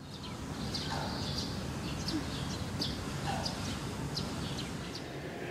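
Small birds chirping, many short high notes repeating irregularly, over a steady low background rumble of outdoor ambience.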